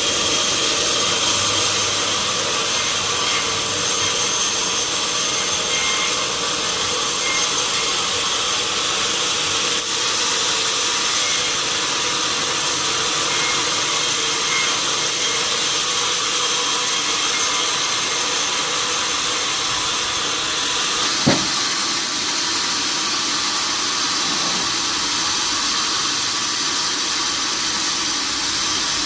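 Sawmill saw running, a steady hissing noise with no break. One short sharp knock about two-thirds of the way through.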